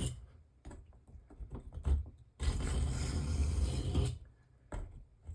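Knife blade scraping under firm pressure along a wet 220-grit diamond sharpening stone, reprofiling a rounded, damaged edge. Light scrapes and ticks come first, then one long stroke about two and a half seconds in.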